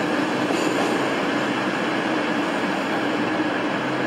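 Virgin Voyager diesel multiple-unit train running through the platform: a steady drone from its underfloor diesel engines with a low hum.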